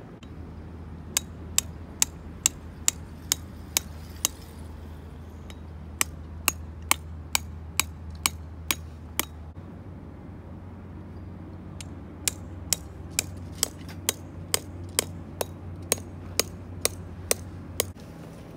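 Tent pegs being hammered into stony ground: sharp ringing strikes about two a second, in three runs of roughly eight, eight and thirteen blows.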